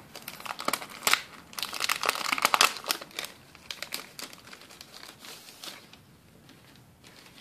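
A sheet of packaged stickers crinkling as it is handled and turned over, with dense crackling for the first three seconds that thins to a few scattered crackles and then stops.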